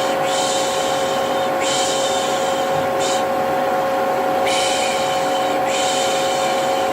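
Vacuum cleaner motor running steadily with a humming whine, while a person shushes over it with about five 'shh' sounds, each about a second long, in pairs with short gaps: the 'piş piş' shushing used to calm a baby.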